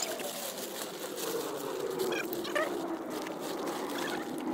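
Nylon fabric of a Coleman tent and its large carry bag rustling and crinkling as the tent is pulled out and stood up, with scattered light clicks and a couple of short high squeaks about two seconds in.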